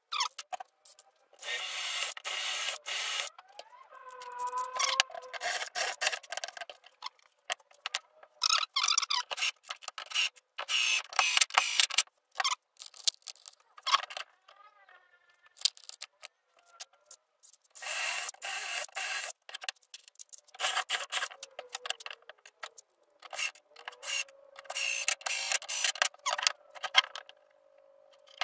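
Scraping and rubbing of workshop handling, in short irregular bursts with pauses between, and a few brief squeaks.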